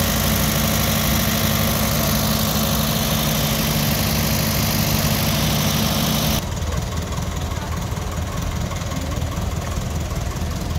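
Vintage tractor engines running close by as tractors drive past. About six seconds in the sound changes abruptly to a quieter, deeper engine note.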